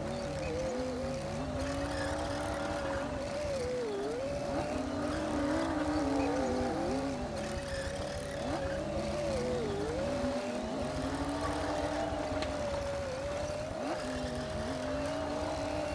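Komatsu D60P bulldozer's diesel engine running steadily, its whine briefly dipping in pitch and recovering several times, as when the engine lugs under the load of the blade.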